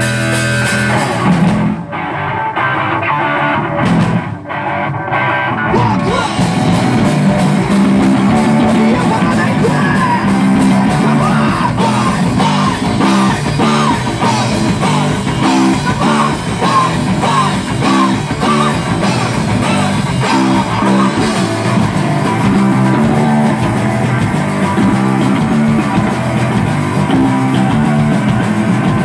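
Live rock band starting a song: an electric guitar plays alone at first, breaking off twice, then the drums, bass and guitars come in together about six seconds in and the band plays on at a steady driving beat.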